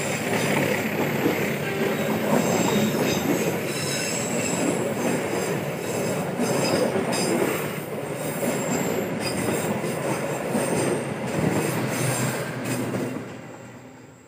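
Mutiara Selatan passenger train coaches rolling past close by on a curve: a steady rumble of wheels on rail, with high-pitched wheel-flange squeal coming and going. The sound fades out near the end.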